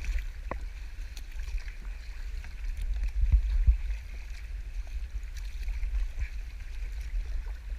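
Water lapping and splashing around a kayak on the sea, over a steady low rumble, with a few louder low bumps about three seconds in.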